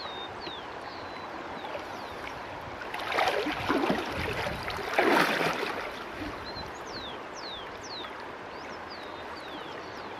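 Shallow river water sloshing and splashing as a man works a submerged can and his hands through it while wading, with two louder splashes about three and five seconds in.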